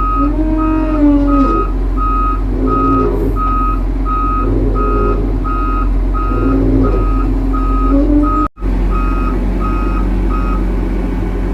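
Heavy machine's travel/reversing alarm beeping steadily and evenly over a diesel engine running, with a brief break about eight and a half seconds in. The beeping stops about ten seconds in.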